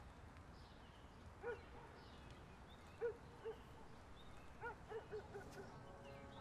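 A dog barking faintly in short single barks and a quick run of four, over quiet outdoor ambience. Near the end, steady held music tones fade in.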